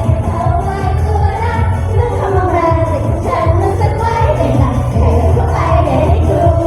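Idol-pop song playing loud, with sung vocals over a heavy pulsing bass beat.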